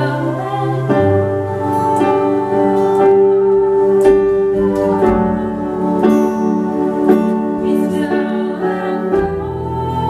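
Live band music: a woman singing over a strummed acoustic guitar, bass guitar and a hand drum, the bass changing note about a second in and again near the end.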